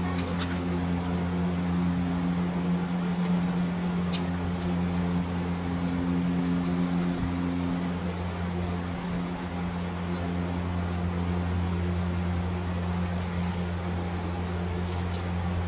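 Steady low machine hum, with a few faint crinkles of paper being creased by hand.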